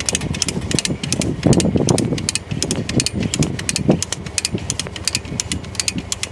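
Come-along ratchet clicking quickly, several clicks a second, as its handle is worked to pull tension into woven-wire fence, over a steady idling engine.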